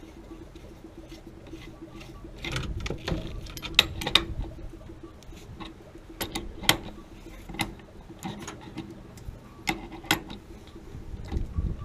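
Metal clicks and taps of a wrench working the gas supply line fitting on a water heater's gas control valve, irregular and sharp, with some handling noise about a third of the way in.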